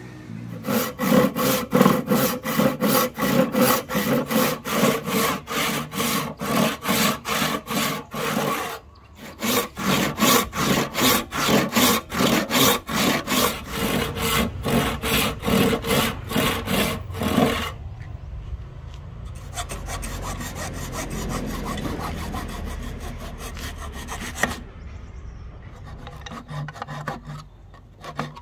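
Hand saw cutting through padauk wood in steady back-and-forth strokes, about two a second, with a short pause about a third of the way in. After that the strokes become quicker, shorter and lighter.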